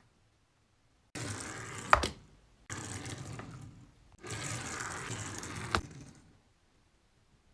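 Toy packaging being handled and opened: three bursts of crinkling and crackling, with a sharp snap about two seconds in and another near the end of the third burst.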